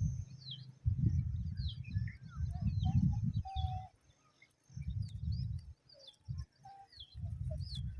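Birds chirping: many short high chirps and quick glides scattered throughout, with a few brief lower held notes around the middle. Under them come four bursts of low rumble, each about a second long, louder than the chirps.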